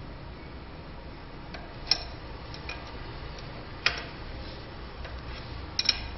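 Sharp metallic clinks of steel wrenches knocking against a compression fitting's nut as it is tightened on metal-plastic pipe, the wrench re-set on the nut between turns. Three louder clinks come about two, four and six seconds in, with fainter clicks between.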